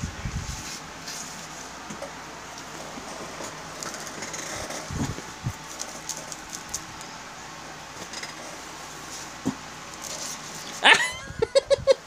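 Cat rolling and pawing in loose catnip on a bedspread, soft rustling; near the end a loud cat vocalization, one cry followed by a quick string of short, high cries.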